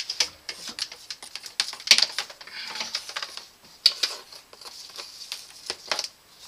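Handling noise as a sump pit lid is lifted off and the pump's power cord pulled up through it: a run of irregular clicks, knocks and scrapes, with sharper knocks about two and four seconds in.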